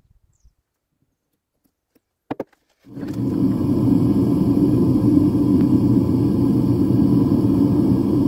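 Near silence with two short knocks a little over two seconds in, then, about three seconds in, a propane-fired melting furnace's burner comes in abruptly as a loud, steady, low rushing noise that holds without change.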